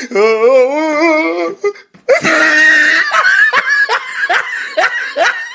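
A man laughing hysterically. It starts as one long wavering laugh, breaks off briefly, then turns into a run of wheezing, squealing laughs, about two or three a second.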